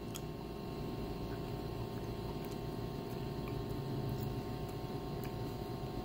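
Steady electrical hum of the room, with a few faint, scattered clicks from a mouth chewing a chocolate-covered cicada.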